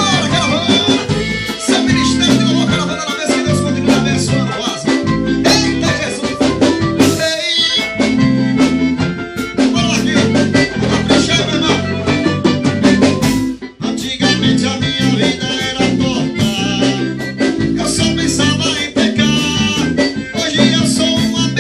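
A live band rehearsing an upbeat Latin-style song: a man sings over accordion, congas, drum kit and electric bass. There is a brief break in the music about two-thirds of the way through.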